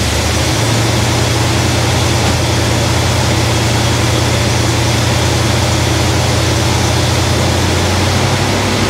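1971 Cadillac DeVille's 472 cubic-inch V8, fed by a freshly restored Quadrajet carburetor, running at a steady high idle just after being started. Its note shifts slightly near the end, which the owner takes for the vacuum advance kicking in and smoothing the idle.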